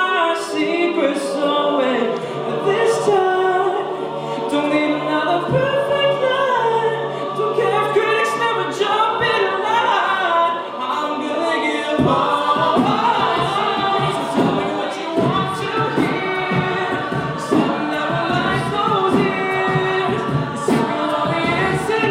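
A cappella vocal group singing a song in harmony, voices only with no instruments. A low bass part comes in about halfway through.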